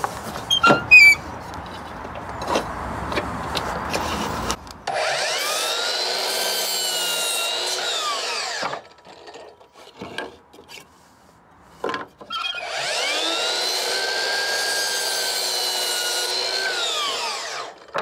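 Electric mitre saw making two cuts through timber batten. Each time the motor whines up to speed, runs through the wood for about four to five seconds, then winds down quickly. Knocks and rubbing of timber being set on the saw come before the first cut.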